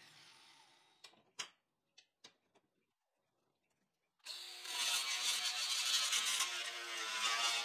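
An angle grinder spins down and fades. A few light knocks follow, then a short silence. About four seconds in, an angle grinder with an abrasive disc starts grinding mild steel flat bar, a loud steady hissing grind, to smooth the curved chair legs.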